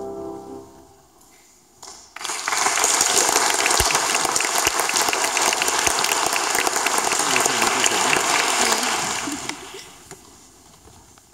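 The last notes of a four-hand piano duet die away, then an audience applauds for about seven seconds before the clapping fades out.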